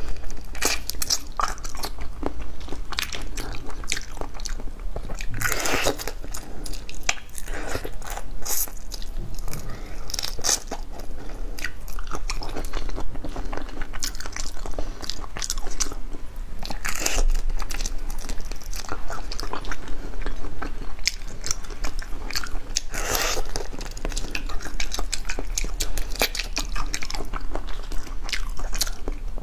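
Close-miked biting and chewing of whole raw shrimp in a spicy marinade: shells crunching, with many small crackling clicks and a few louder crunches spread through.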